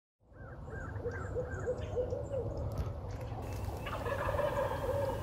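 Wild turkey calling at dawn: a run of short notes, each rising and falling in pitch, about four a second, over a low steady rumble.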